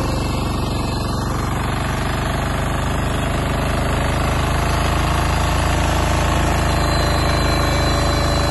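Kirloskar KMW Mega T15 power tiller's single-cylinder diesel engine running steadily under load with a fast, even chugging, its rear rotary tiller churning the soil.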